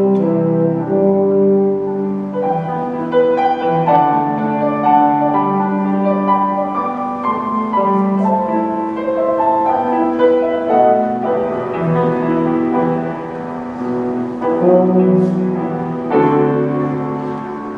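Orchestra playing a slow instrumental piece, with piano prominent over sustained bowed strings.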